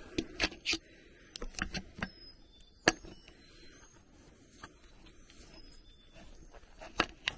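Scattered sharp clicks and knocks of handling noise on a hand-held camera, the loudest about three seconds in and another near the end. Faint, short, high bird chirps sound between them.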